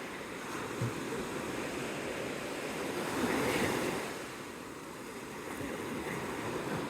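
Ocean surf washing onto the beach, swelling about three seconds in and then easing off, with some wind buffeting the microphone.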